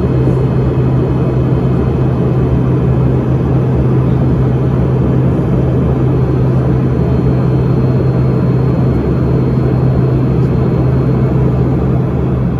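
Cabin noise of an Embraer ERJ-145 regional jet in flight: a steady low hum from its rear-mounted turbofan engines under a constant rush of airflow.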